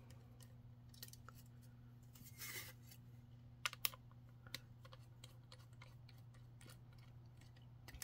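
Small screwdriver backing screws out of a sheet-metal hard-drive caddy: faint scattered ticks and clicks, with a brief scrape about two and a half seconds in and a few louder clicks between about three and a half and four and a half seconds. A low steady hum runs underneath.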